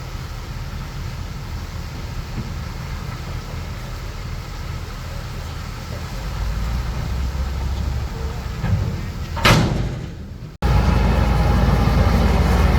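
Bulldozer's diesel engine running with a steady low rumble, working harder from about halfway through. Near the end there is a short, sharp, loud noise, and then the sound breaks off and comes back suddenly louder.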